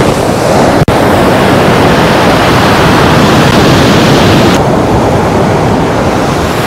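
Loud, steady rush of sea surf on the shore mixed with wind buffeting the microphone. It cuts out for an instant just under a second in.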